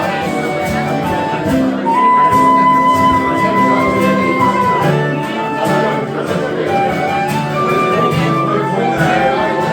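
Fiddle playing a melody over guitar accompaniment, with long held notes and no singing.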